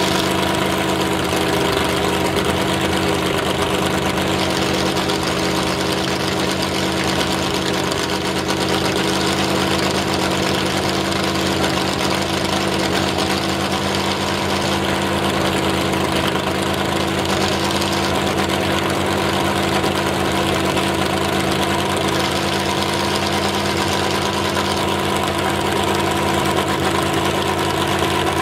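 Square-body Chevy mud truck's 413 cubic-inch V8 with open headers idling steadily.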